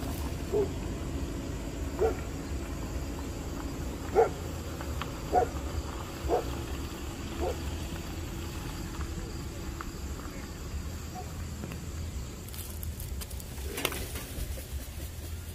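Black vultures giving short grunting calls, about six of them a second or two apart in the first half, over a steady low hum, with a brief rustle near the end.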